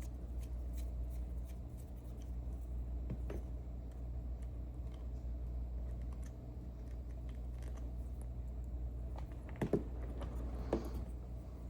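Small metal clicks and taps from the parts of an Ezcurra C23 slider lock being handled while it is taken apart, with two louder clicks near the end, over a steady low hum.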